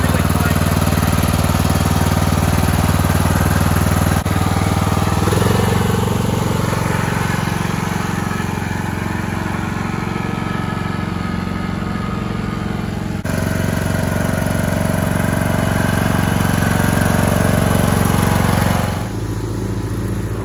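John Deere E100 riding lawn tractor's engine running steadily as the tractor drives off and mows. The sound shifts at a couple of points and drops off for the last second or so, heard from farther away.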